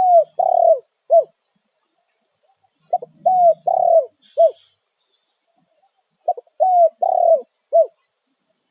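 Spotted dove (tekukur) cooing: phrases of a short note, two longer falling coos and a short final coo, repeated about every three seconds, three phrases in all. It is the dove's call to others of its kind.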